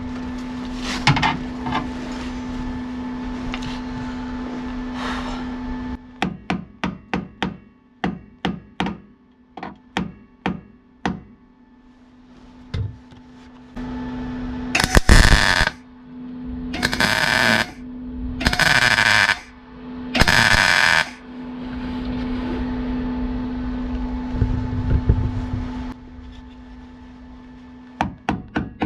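About ten sharp metal taps at roughly two a second, then four short bursts of electric welding crackle, each about a second long, as a sheet-steel body panel is tack- or stitch-welded. A steady hum sits under the rest.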